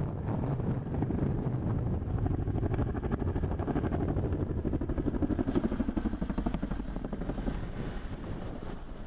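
Tandem-rotor Chinook-type firefighting helicopter flying overhead, its rotors beating in a rapid steady pulse that grows louder to a peak about five to six seconds in, then eases off.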